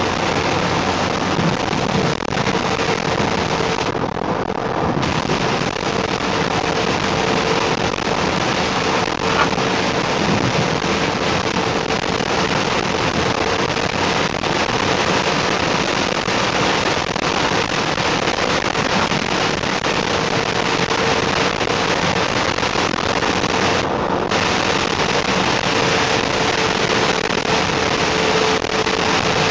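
Steady, dense hiss of heavy rain in a thunderstorm, with a steady hum underneath.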